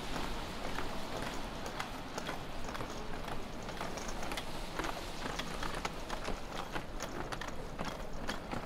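Footsteps on a snowy city sidewalk: a run of sharp, irregular clicks over a steady background of city noise.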